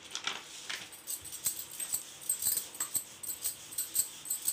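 Wooden rolling pin rolling out wheat dough on a plastic sheet over a counter, with a light clicking about twice a second as she pushes each stroke.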